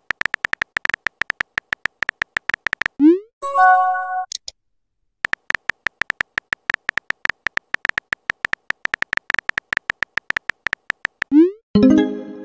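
Phone chat-app sound effects: rapid keyboard tap clicks, each with a short electronic beep, as a message is typed. About three seconds in, a quick rising whoosh as the message is sent, then a short pitched chime. The tapping starts again and the whoosh and chime come once more near the end.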